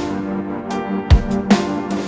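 Background electronic music with steady sustained synth tones and a regular beat of deep drum hits.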